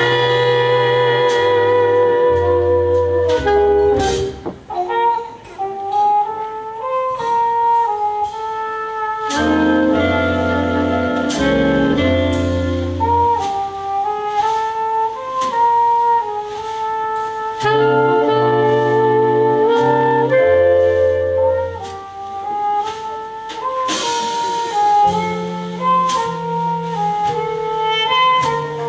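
Big band playing jazz live: a solo trumpet carries a melody with vibrato over held saxophone and brass chords, with stepping bass notes and cymbal strokes from the drum kit.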